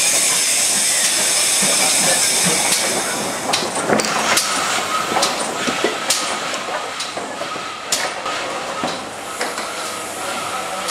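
GWR 42xx class 2-8-0 tank locomotive hissing steam. About three and a half seconds in it starts to move off, and irregular clanks and knocks from its motion and wheels come through. The hiss and overall sound fade slowly as it draws away.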